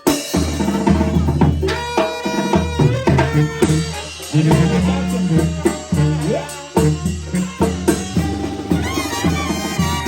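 Live Mexican banda brass band kicking off a song: drums and a steady, heavy low bass line under the horn melody, starting abruptly at the opening.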